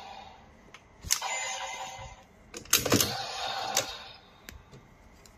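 DX Legend Driver toy belt handled: sharp plastic clicks and snaps as cards and parts are worked. Twice, about a second in and again around three seconds, a click sets off about a second of electronic sound from the toy's speaker, then a few small ticks.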